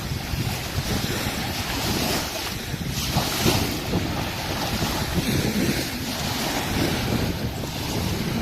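Wind buffeting the microphone over the wash of water waves on a shore, a steady rushing noise with an uneven low rumble.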